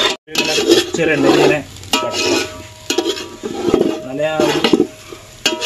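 Metal spoon stirring and scraping food around in a metal cooking pan, with clinks of utensil on pot, while the mutton cooks.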